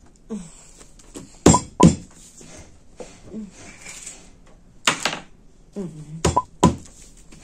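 A handful of sharp knocks and thuds of toys and hands on a tabletop, the loudest two close together about a second and a half in, and more near the end.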